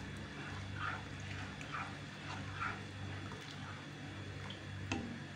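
A spoon stirring thick milk in a metal pan, with soft scrapes and sloshes about once a second and a sharp knock near the end, over a steady low hum.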